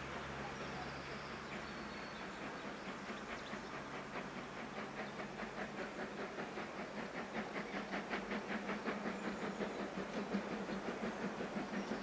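Steam locomotive working under steam as it approaches, its exhaust chuffs at about four a second growing steadily louder, over a steady hiss.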